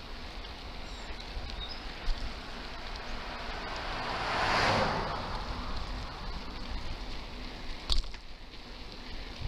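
Wind buffeting the microphone and road rumble from a moving bicycle, while a car passes the other way: its tyre noise swells to a peak about halfway through, then fades. There are two sharp knocks, about two seconds in and near the end.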